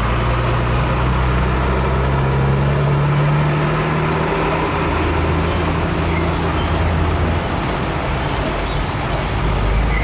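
Diesel engine of a Mitsubishi Fuso Fighter 220PS truck running as the loaded truck moves slowly forward. Its note rises from about two seconds in, then drops back around four seconds.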